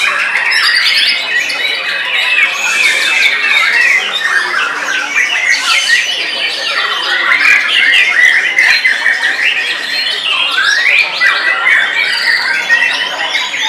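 Many caged white-rumped shamas (murai batu) singing over one another in competition: a dense, unbroken tangle of rapid whistles, chatters and trills.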